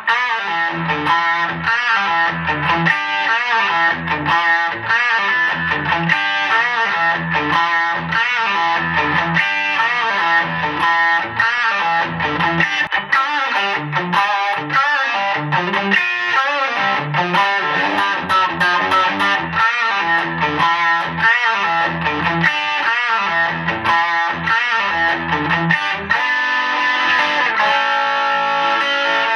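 Semi-hollow 335-style electric guitar played through an amplifier: a continuous stream of quick single-note runs and riffs, moving to longer held notes and chords near the end.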